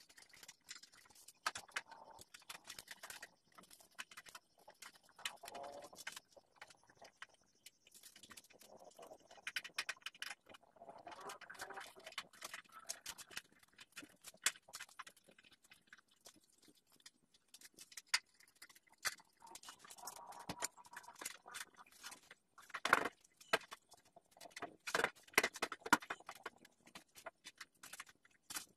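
Plastic rear fender and seat being handled and pressed onto a trail-bike frame: irregular clicks, taps and knocks, with the loudest knocks toward the end.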